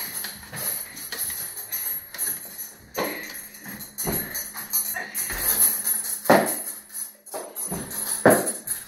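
A child punching a hanging heavy bag: several thuds at uneven gaps, with the bag's metal chains jingling and rattling.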